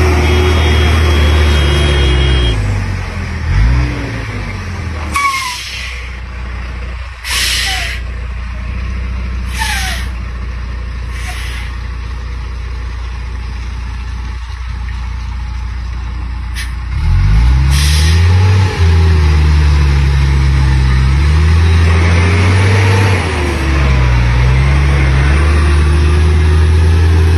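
Heavy diesel truck engine labouring under a heavy load, loud at first, easing back in the middle, then loud again from about 17 s with its pitch rising and falling as it revs. Several short hisses of air from the brakes cut through in the middle.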